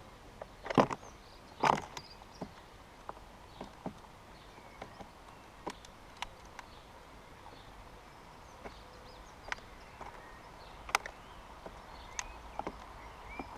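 Birds pecking and hopping on a bird table right beside the camera: irregular sharp taps and knocks, the two loudest about a second and two seconds in, with scattered lighter taps after.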